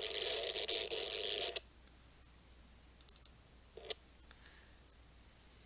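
Steady hiss of radio static from a software-defined radio receiver's audio, cutting off abruptly about a second and a half in, followed by a few soft clicks.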